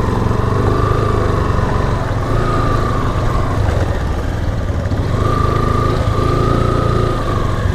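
Motorcycle engine running steadily at low speed on a rough gravel track, with a higher-pitched whine that fades in and out several times.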